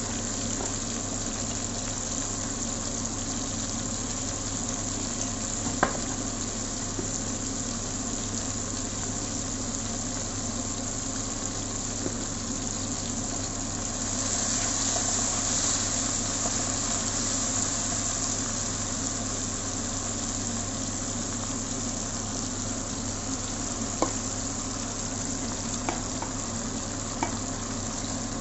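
Chopped onions, tomatoes and bell peppers sizzling in oil in a nonstick wok. The sizzle grows louder for a few seconds about halfway through as the vegetables are stirred with a plastic spatula. A few sharp taps of the spatula on the pan come near the start and toward the end.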